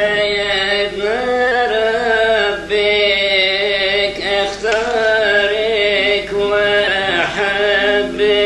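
A monk's male voice chanting a Coptic madeeh (praise hymn), holding long wavering notes in phrases with a few short breaks between them.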